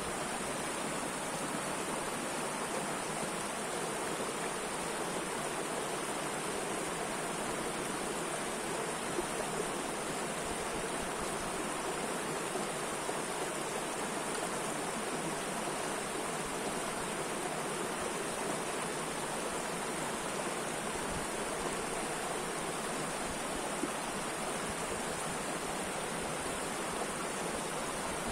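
Mountain river rushing steadily, a constant even wash of flowing and splashing water with no breaks.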